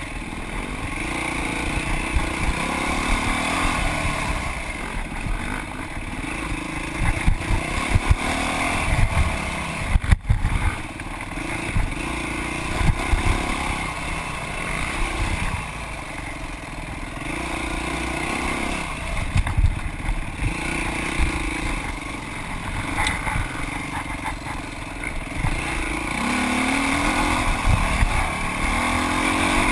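Dirt bike engine running hard, its pitch rising and falling every few seconds as the throttle opens and closes, with frequent thumps and clatter.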